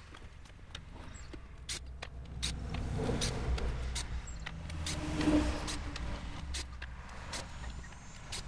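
A road vehicle passing, its rumble swelling to a peak about five seconds in and then fading, with scattered sharp clicks and knocks from a plywood panel and cordless drill being handled.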